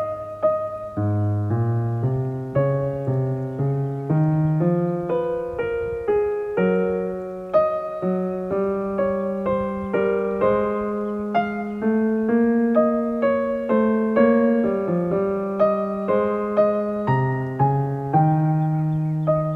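Soft background piano music, a gentle melody of struck notes over a slow bass line.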